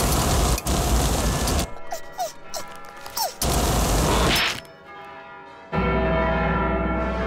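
Two long rushing blasts of a hot-air balloon's gas burner, fired by a pull on its cord, with a few short squeaky chirps between them. About two seconds before the end, steady ringing tones of church bells with music set in.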